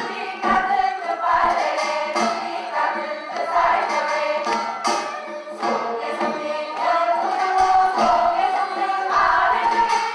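A group of voices singing together in a Korean traditional folk-song style, accompanied by music with sharp percussion strokes.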